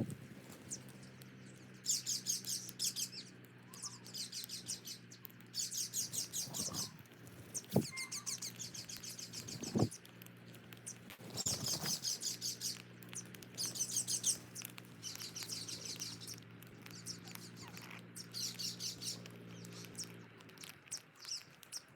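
Small birds chirping in rapid, high-pitched trills that come in bouts about a second long, over and over. A steady low hum runs underneath, with a few sharp clicks in the middle.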